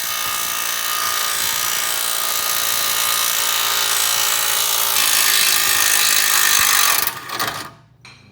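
An impact wrench with a 27 mm socket hammers steadily on a Hummer's torsion bar adjuster bolt, backing the bolt off to unload the torsion key. It runs for about seven seconds, then stops.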